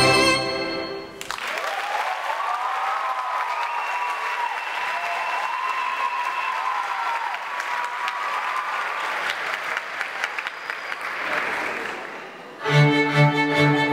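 Theatre audience applauding and cheering after string music stops about a second in; the applause dies down and orchestral string music starts near the end.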